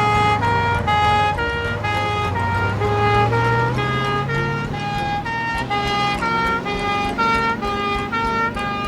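Electronic tune of short beeping notes at changing pitches, about three to four a second, over a low steady hum.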